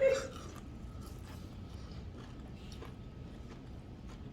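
Faint chewing of a crunchy tortilla chip, a scatter of soft crackles and clicks.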